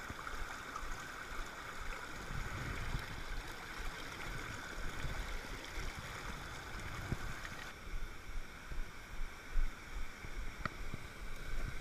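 Mountain stream water rushing and splashing over rocks close by. About eight seconds in the rushing grows somewhat fainter, and low uneven bumps come in.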